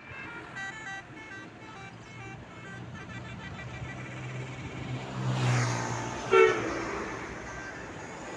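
Indonesian bus 'telolet' basuri horn playing a quick melody of short notes at changing pitches. Then the bus's engine swells as it passes, with one short, loud horn note about six seconds in.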